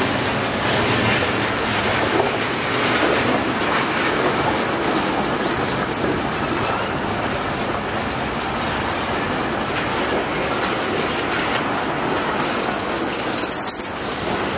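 Freight cars, open coal gondolas and then covered hoppers, rolling past at close range: a steady rumble of steel wheels on rail with clicking as the wheels pass over the rail joints.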